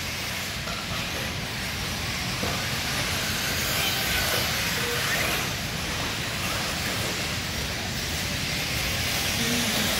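Nitro-powered 1/8-scale RC truggies racing around a dirt track, their small two-stroke glow engines blending into a steady, hissing high-pitched din.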